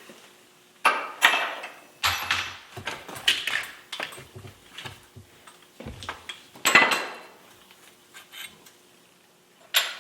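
Metal clinking and clanking as a bicycle headset is taken apart: tools and headset parts knock together in a series of sharp, ringing clanks, the loudest about two-thirds of the way through.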